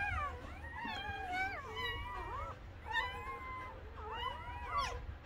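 Newborn Belgian Malinois puppies crying: high-pitched mewing squeals, several at once, rising and falling in pitch.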